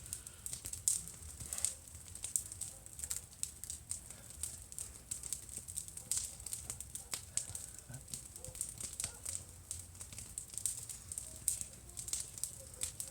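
Bonfire burning, with scattered sharp crackles and pops.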